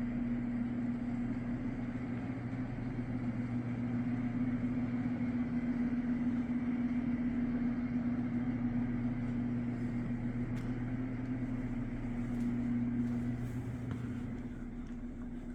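A steady machine hum over an even rushing noise. The hum fades near the end.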